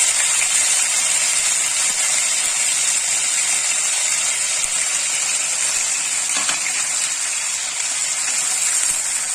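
Ground fresh turmeric paste sizzling steadily in hot ghee in a kadhai as it is roasted.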